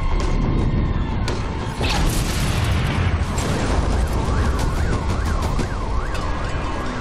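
Aftermath of a bomb blast: a heavy low rumble with pieces of debris clattering down in the first couple of seconds. From about four seconds in, an alarm siren wails in a fast rise and fall, about three times a second.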